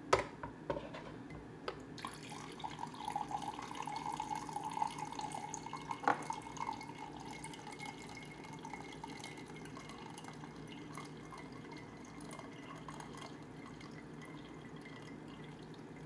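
Hot water trickling and dripping from a Sunbeam hot water maker's spout into a mug held against its dispensing lever, with a sharp click near the start and another about six seconds in, then a steady faint trickle.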